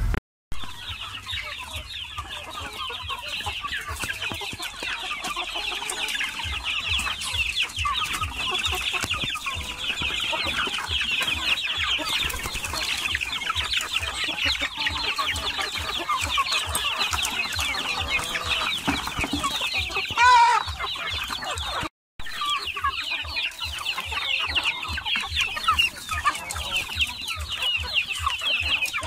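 A flock of young chickens peeping continuously, many short high calls overlapping. One louder, lower call stands out about twenty seconds in.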